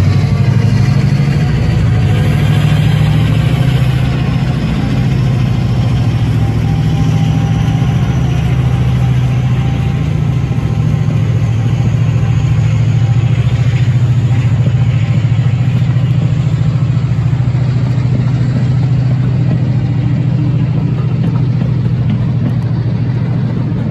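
Diesel locomotives, Class 50 50015 among them, working hard at steady power as they haul a passenger train up a steep 1-in-36 gradient.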